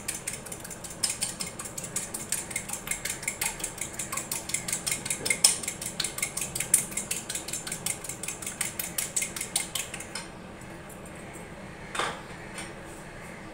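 A fork beating a raw egg in a ceramic plate, the tines clicking against the plate at about five strokes a second. The beating stops about ten seconds in, and one more clink of the fork on the plate follows about two seconds later.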